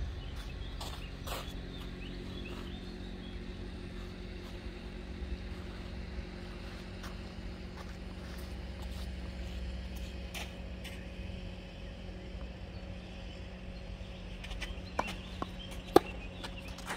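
Outdoor background with a steady low hum and a few faint distant knocks, then a tennis ball struck hard with a racket on a clay court about a second before the end: one sharp hit, the loudest sound.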